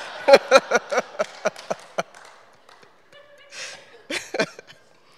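A woman laughing into a handheld microphone: a quick run of breathy laughs for about two seconds that trails off, then a few faint breaths and small voiced sounds.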